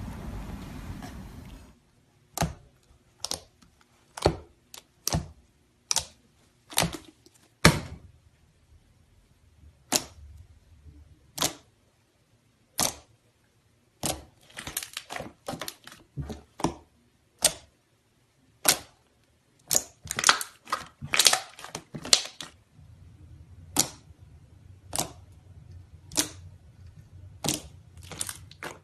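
Slime being squeezed and poked, giving many sharp, irregular clicking pops, some single and some in quick clusters. A steady noise cuts off just before the pops begin.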